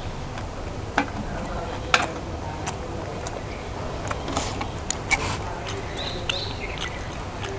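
Eating sounds: chopsticks clicking against a metal bowl of rice noodles a few times, most sharply about one and two seconds in, with chewing between, over a steady low hum.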